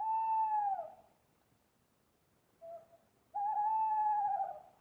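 Owl hooting: a long hoot that drops in pitch at its end, a short soft note, then a longer, wavering hoot.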